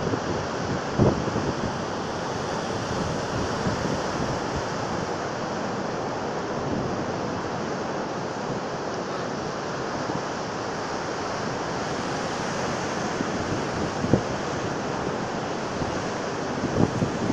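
Rough sea surf breaking and washing up the beach in a steady rush of white water. Wind buffets the microphone briefly about a second in and again near the end.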